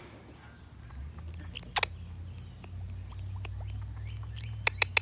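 Short, sharp, high chirps from an Indian ringneck parrot: one a little under two seconds in, then a quick run of them near the end. A low steady rumble sets in about a second in.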